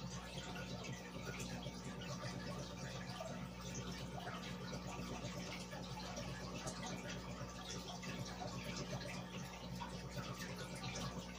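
Aquarium air bubbles rising and breaking at the water surface from the sponge filter, a steady fizzy trickle and patter of small drips. A steady low hum runs underneath.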